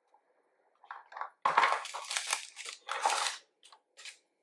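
Offset palette knife spreading buttercream in a baking-parchment-lined tin: an irregular run of scraping and paper crinkling, starting about a second and a half in.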